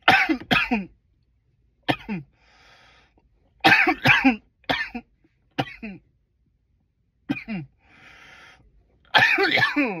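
A man coughing loudly in repeated fits, several harsh coughs to a fit, each dropping in pitch, with breaths drawn in between.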